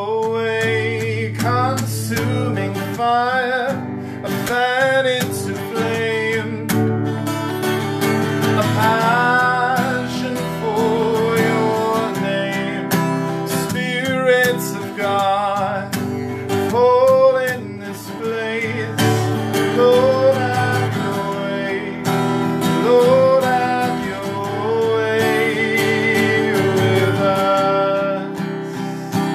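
A man singing a worship song while strumming an acoustic guitar, with long held notes over steady strummed chords.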